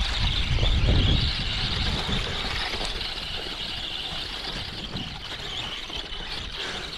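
Traxxas Mini Summit RC truck's electric motor and drivetrain whining steadily as it drives over wet, muddy ground, with a low rumble that is loudest in the first two seconds and then fades.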